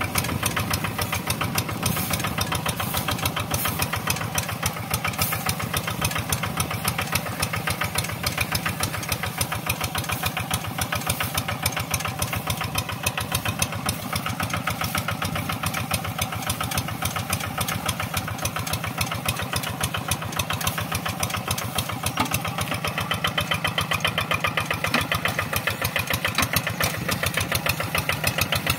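Single-cylinder diesel engine of a two-wheel hand tractor running steadily under load as it pulls its cage wheels through paddy mud, with a rapid, even chugging beat.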